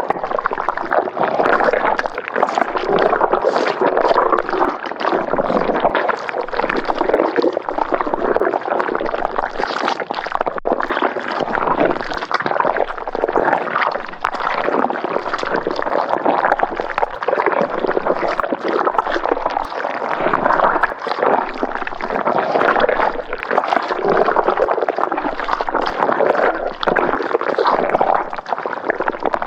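Thick, viscous liquid bubbling and gurgling continuously, with a dense stream of overlapping pops and glugs: a horror sound effect of a bubbling thick liquid.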